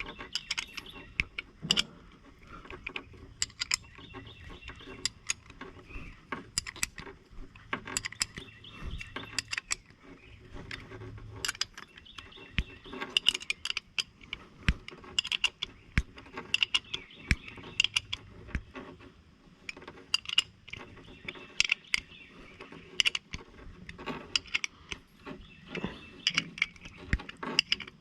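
Irregular metallic clicks and clinks of a hand cable-swaging tool being worked and tightened down to crimp a ferrule onto rigging wire.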